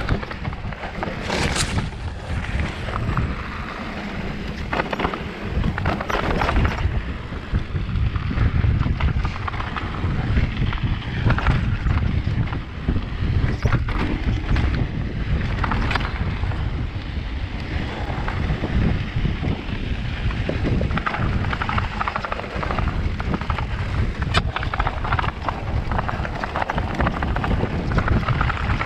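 Wind rushing over a GoPro's microphone on a fast mountain-bike descent, with the tyres rolling over a rocky dirt trail and frequent sharp knocks and rattles from the bike over bumps.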